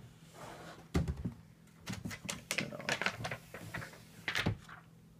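Irregular clicks and knocks of a plastic drone remote controller being handled and turned over, with a louder knock about a second in and a cluster of clicks in the middle.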